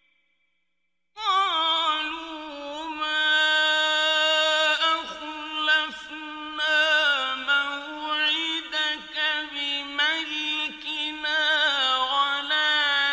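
A male reciter chanting the Quran in the melodic mujawwad style. After about a second of silence, he sings one long phrase, holding notes with a wavering, ornamented pitch and sliding between them, with only brief breaks.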